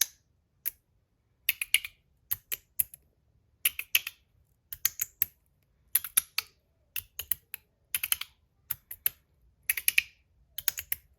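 Osseous Point EDC fidget slider being worked back and forth, giving sharp clicks in quick clusters of two to four about once a second.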